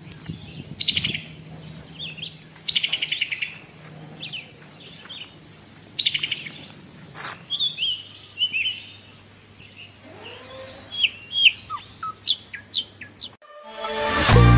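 Small birds chirping, with short high calls and several rapid trills, over a faint steady low hum. Loud music cuts in near the end.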